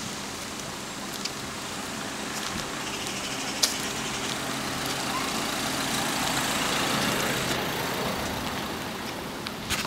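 A motor vehicle's engine running, growing louder to its peak about seven seconds in and then fading. A single sharp click comes about three and a half seconds in.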